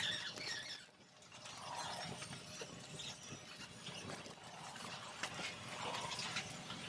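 A vending machine's banknote acceptor whirring and clicking as its rollers draw a yen note in and push it back out: the machine is rejecting the note.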